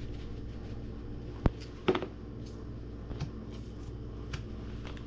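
Kitchen handling sounds while seasoning raw fish fillets on a wooden cutting board: a sharp click, then a clatter about two seconds in as the Old Bay tin is handled and set down, followed by a few soft taps. A steady low hum runs underneath.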